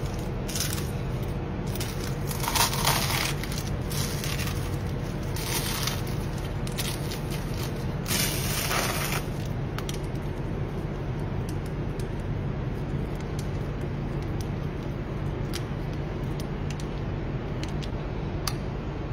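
Flaky baked puff pastry crackling and crunching as a spoon presses down into its centres, in four short bursts over the first ten seconds, then scattered faint clicks over a steady low hum.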